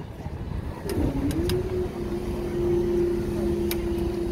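Level crossing barrier mechanism's motor starting about a second in, dipping briefly in pitch and then running at a steady hum as the barrier booms rise to reopen the road, with a few sharp clicks.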